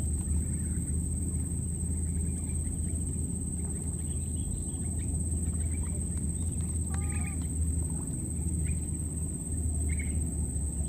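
Outdoor ambience: a steady low rumble and a steady high-pitched whine, with a few short chirping calls, the clearest about 7 seconds and 10 seconds in.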